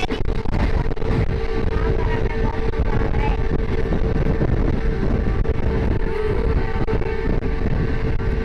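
Passenger train running steadily at speed, heard from inside a carriage by an open window: a continuous rumble of wheels on the track and rushing air, with a steady hum under it.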